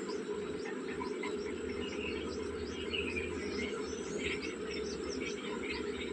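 Small birds chirping: many short, irregular high chirps over a steady low background hum.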